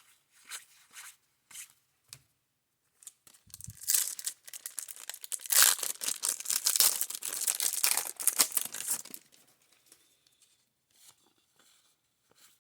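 A baseball card pack wrapper being torn open and crinkled, with a dense crackling that lasts about five seconds from a few seconds in, after light card-handling ticks.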